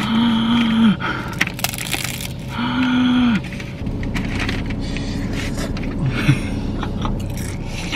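Crisp, flaky chocolate-topped pastry crackling and crunching as it is handled and bitten, with its paper bag rustling. Two long hums are heard in the first few seconds.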